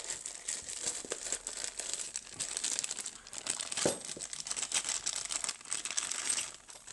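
Clear plastic zip bag crinkling and rustling as hands work it open around a small brass lock cylinder. The crinkling stops shortly before the end.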